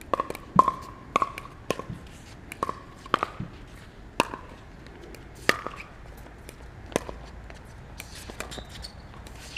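Pickleball rally: solid paddles striking a hollow plastic pickleball over and over, with the ball bouncing on the hard court. The sharp pops, several with a short ring, come in quick succession for the first few seconds, then more spaced out and fainter near the end.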